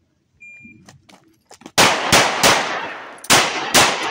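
A shot timer beeps once; about a second later a Ruger Max 9 9mm micro-compact pistol fires five shots: three quick ones about a third of a second apart, then a short pause and two more.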